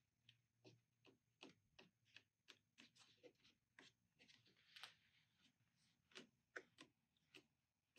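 Faint, irregular clicks and taps of fingers pressing an adhesive-backed rubber tailgate seal onto the tailgate's plastic top, two or three a second, with a brief rub near the middle.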